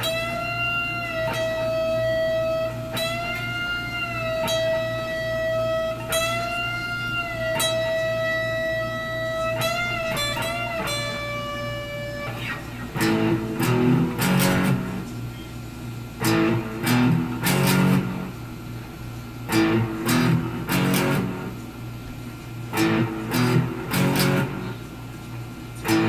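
Electric guitar holding one long high note, bent up slightly and back a few times, for about twelve seconds, with a few quick notes near its end. Then short chords are struck in tight clusters every three seconds or so.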